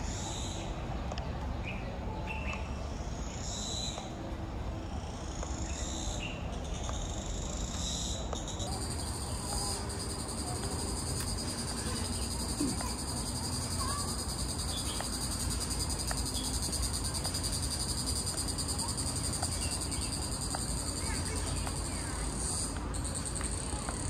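Cicadas singing in the trees. High-pitched calls swell and rise about every two seconds, then merge about nine seconds in into one continuous, steady buzz.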